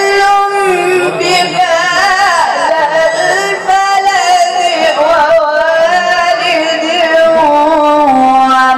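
A man reciting the Quran in the melodic, drawn-out style of tilawat, holding long notes and sliding slowly from pitch to pitch.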